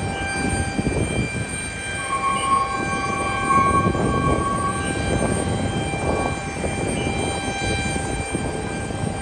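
Jet engine rumble from a Boeing 737 MAX 8's CFM LEAP-1B engines as the airliner slows on the runway after landing, over a steady high-pitched whine. A brighter tone joins about two seconds in and fades out about three seconds later.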